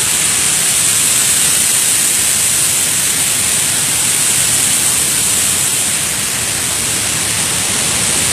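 Steady roar of the Bản Giốc waterfall's falling water, an even hiss-like rush with no breaks.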